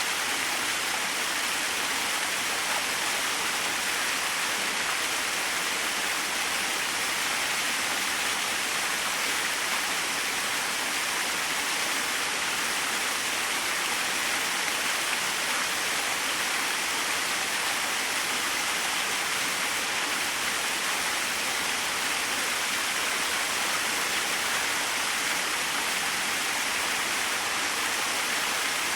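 Small waterfall splashing and rushing steadily, an even hiss of falling water without breaks.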